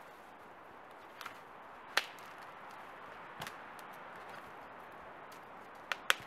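Sharp wooden knocks and cracks as logs and branches are laid and knocked together to build a raised bed. The loudest comes about two seconds in, and a quick pair near the end.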